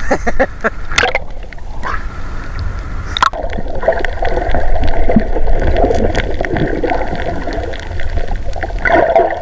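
Muffled gurgling and bubbling of seawater around a camera held under the surface, with a few sharp knocks and splashes in the first few seconds.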